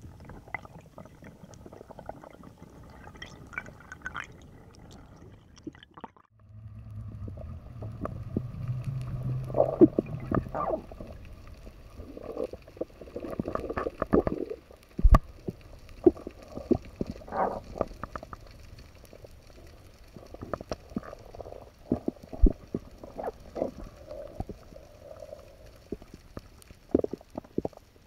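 Muffled underwater sound picked up by a camera in its housing during a freedive: water moving and gurgling, with many sharp clicks and knocks scattered throughout. The sound drops out briefly about six seconds in, then a low hum runs for a few seconds.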